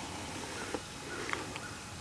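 Quiet woodland background with two brief, faint chirps or clicks, about a second apart.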